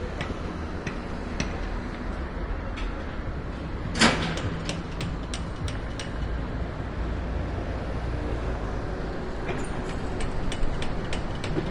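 Urban construction-site ambience: a steady low rumble with scattered light clicks and ticks, and one louder, sharp hit about four seconds in.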